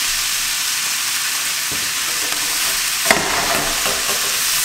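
Noodles and vegetables sizzling in a hot wok while being stirred and tossed with a spatula. A single sharp knock comes about three seconds in.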